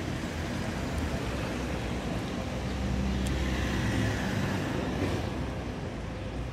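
Road traffic going by, with one vehicle passing and loudest about three to five seconds in.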